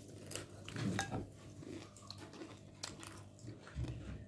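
A person chewing a fried roll close to the microphone: soft, uneven mouth sounds with small clicks.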